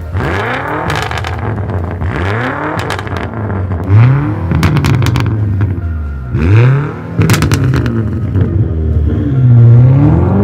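BMW F90 M5's twin-turbo V8 revved repeatedly through an aftermarket exhaust: a series of throttle blips, each rising and falling in pitch, with sharp pops between them, and a longer rev climbing near the end.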